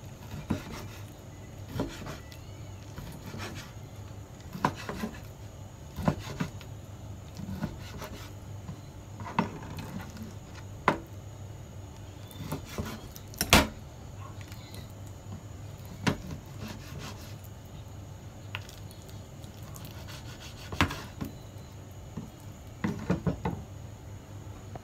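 Large chef's knife slicing raw chicken breast on a plastic cutting board: irregular knocks of the blade striking the board, with softer rubbing between, one knock louder about halfway through. A steady low hum lies under it.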